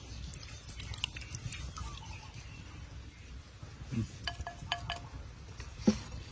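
Chopsticks, a metal spoon and a ceramic bowl clinking and knocking against a metal pan as blood sauce is poured over peanuts and meat, with a few short ringing clinks past the middle, over a low background rumble.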